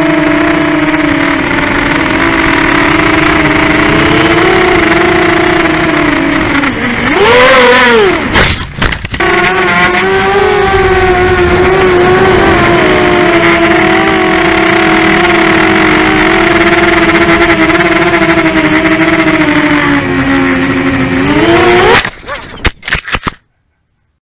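Mini FPV quadcopter's four brushless motors (Lumenier FX-2206 2000kv) spinning Gemfan 5x3 propellers, a steady buzzing whine heard close up from the onboard camera, its pitch shifting with the throttle. About seven seconds in the pitch rises sharply, then drops and the sound briefly breaks up; near the end it rises again, stutters and cuts off.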